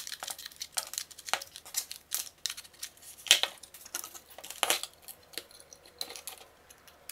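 Irregular clicks, taps and light rustles of hands handling a battery charger's plastic housing, fan wires and circuit board while it is being put back together, with the sharpest clicks a little over three seconds in and again near five seconds.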